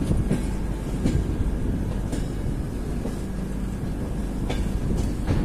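Express passenger train running, heard from aboard a coach: a steady rumble of wheels on rail with irregular sharp clacks as the wheels cross track joints.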